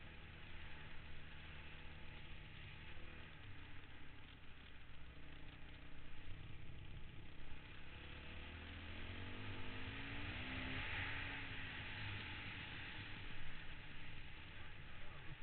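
Honda dirt bike engine running while riding along a dirt trail, its pitch climbing as it revs up about two-thirds of the way through. A steady rushing hiss runs under the engine and swells as the bike speeds up.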